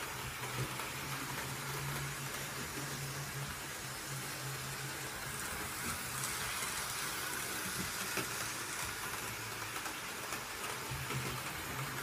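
Model train running on its track: a low electric-motor hum and rolling whirr over a steady hiss. The hum is louder while the train is close by, fades in the middle as it goes round the far side, and comes back near the end.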